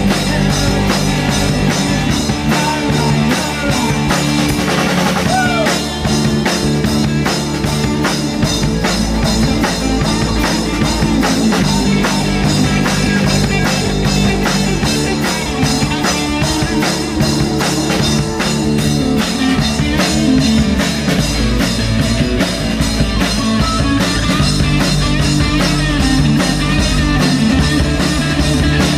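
Live rock band playing loud: electric guitar, electric bass and a drum kit with steady, closely spaced drum and cymbal strikes.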